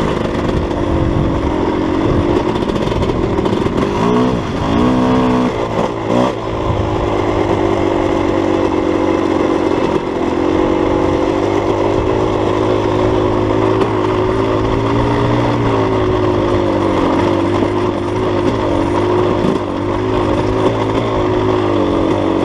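Dirt bike engine with a Rekluse automatic clutch, running continuously while riding a dirt trail. Its pitch rises and falls quickly several times about four to six seconds in, then settles into a steady drone with a low rumble underneath.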